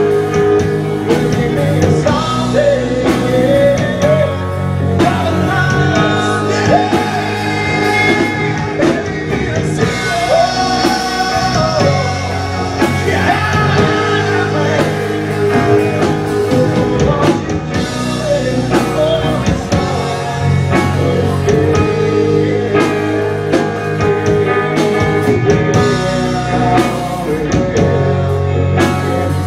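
Live rock band playing: electric guitar, bass and drum kit, with sung vocals.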